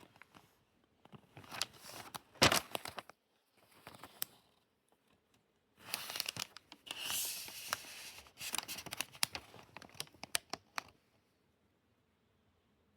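Packaging being unwrapped and handled: wrapping tearing and crinkling, broken by sharp clicks and snaps, with one louder snap about two and a half seconds in and a longer steady tear about six seconds in. The handling stops about two seconds before the end.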